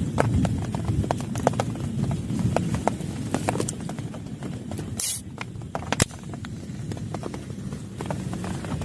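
Heavy rain, with large drops tapping sharply and irregularly on a plastic tarp over a steady low rush. There is a brief hiss about five seconds in.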